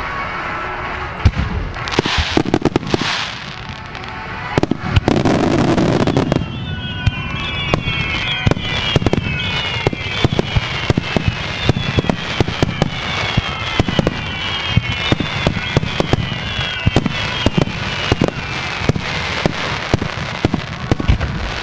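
Starmine fireworks: a rapid barrage of shell launches and bursts, dozens of sharp bangs in quick succession. From about six seconds in, a run of short falling whistles sounds over the bangs, one after another.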